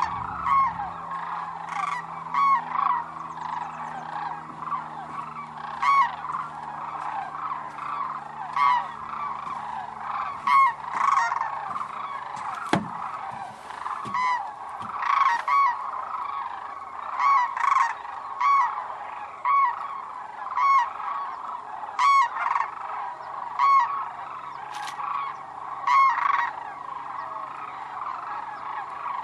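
A large flock of sandhill cranes calling: many overlapping rolling, trumpeting calls, with louder single calls from nearer birds standing out every second or two.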